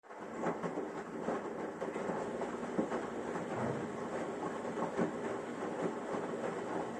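Washing machine running, its drum turning with a steady churning noise and repeated irregular knocks.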